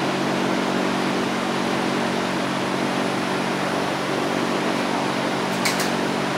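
A machine running steadily: an even rushing noise over a low, level hum, like a shop fan or motor. Two quick clicks near the end.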